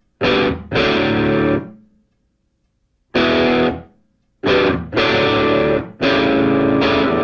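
Background music: distorted electric guitar chords struck in short held blocks, each cut off sharply, with silent gaps between them.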